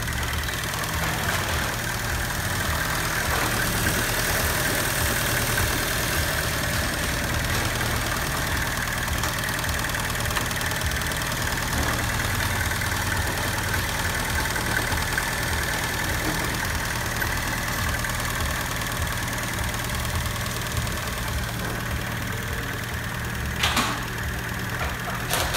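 Fiat Punto 2's 1.2-litre 8-valve four-cylinder petrol engine (188A4000) idling steadily, heard close up from the engine bay, with one brief click near the end.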